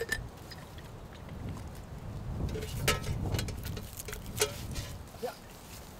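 Scattered clicks and light knocks of a metal bottle, a steel flask and a small pot being handled in dry leaves, over a low wind rumble on the microphone.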